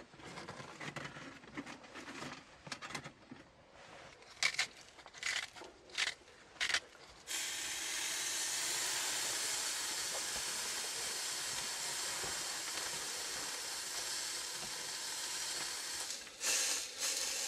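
A few sharp metallic clinks as the thin windscreen and steak are set on a small camp stove. Then, about seven seconds in, a steak starts sizzling steadily as it is laid on the hot titanium diffuser plate of a Firebox Nano gas burner turned way down.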